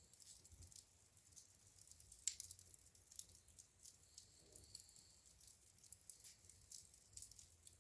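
Fire crackling in a fireplace: faint, scattered snaps and pops, with one sharper pop a little over two seconds in.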